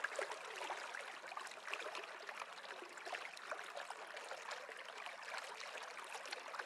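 A small stream trickling steadily and faintly, as a nature-sound ambience.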